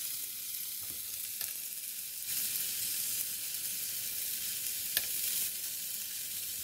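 Galette frying in butter in a pan: a steady sizzle, with a wooden spatula pressing and folding it in the pan and one sharp tap about five seconds in.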